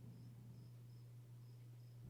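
Near silence: faint insect chirping, short high chirps repeating about two or three times a second, over a low steady hum.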